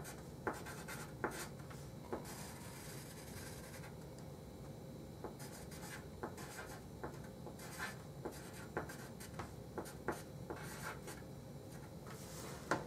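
Handwriting: faint, irregular short scratching strokes and ticks of a writing tool on a surface as a math expression is written out.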